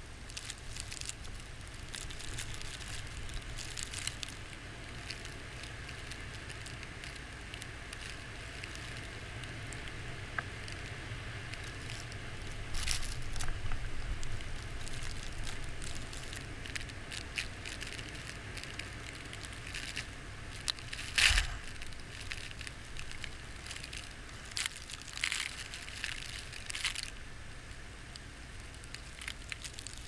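Blizzard wind buffeting the camera microphone in a steady low rumble, with wind-driven snow striking the camera in irregular crackling ticks. One louder knock comes about two-thirds of the way through.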